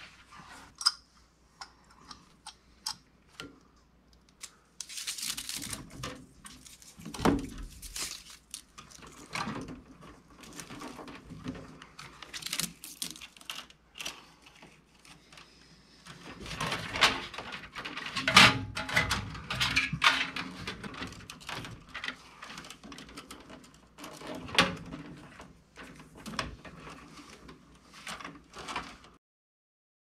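Clicks, snips and rustling of hand work on electrical cable being cut to length. The sounds are irregular and come in busier spells, then stop abruptly near the end.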